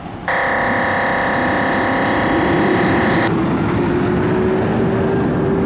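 RadioShack Pro-93 handheld scanner's speaker opening up on a UHF signal: a harsh steady buzz that starts suddenly and lasts about three seconds, then loud hissing static.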